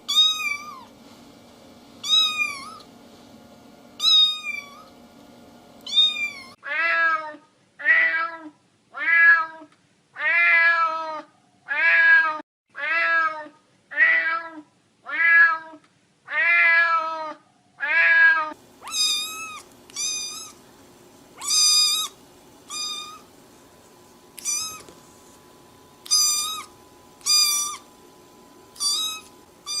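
Cats meowing in turn, with no other sound. A high-pitched cat meows about every two seconds. From about six seconds in, a lower-voiced cat meows roughly once a second. From about eighteen seconds in, another high-pitched cat meows about once a second, some calls short.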